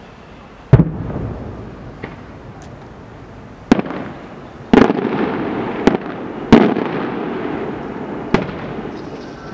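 Fireworks going off: about six sharp, loud bangs at uneven intervals, each followed by a rolling echo that dies away.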